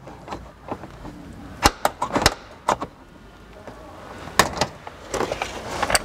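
2012 Subaru Outback plastic B-pillar trim panel being pried and pulled off, its retaining clips letting go with sharp plastic clicks and snaps, a cluster about two seconds in and more past four seconds.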